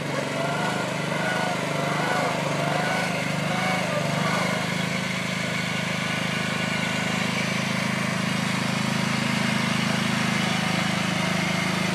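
Riding lawn tractor engine running steadily under load as it tows a golf cart. Voices are heard over it in the first few seconds.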